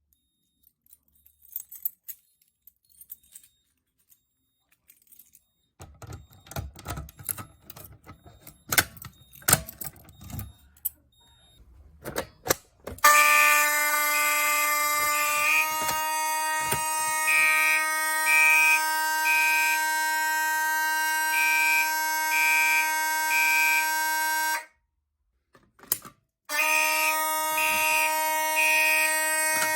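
Clicks and rustling, then fire alarm horns come on loud about halfway in. A steady horn tone sounds with a higher signal pulsing over it in groups of three, code-3 style. It cuts off for about two seconds near the end, then resumes.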